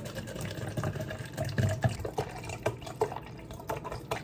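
Water poured from a plastic soda bottle into a clear plastic cup, splashing unevenly as the cup fills.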